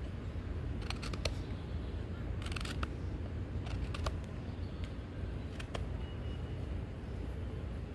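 Knife blade cutting into oak wood: a handful of short scraping strokes and clicks, one longer scrape about two and a half seconds in, over a steady low rumble.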